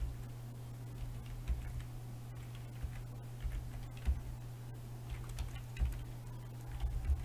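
Typing on a computer keyboard: irregular keystrokes coming in small clusters, over a steady low hum.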